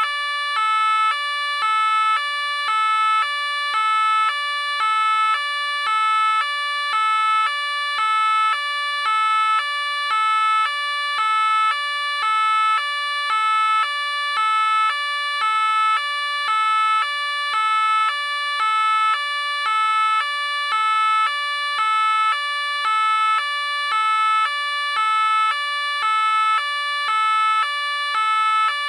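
French police car two-tone siren (the "pin-pon" deux-tons), switching evenly between a lower and a higher note, each held about half a second, in an unbroken loop.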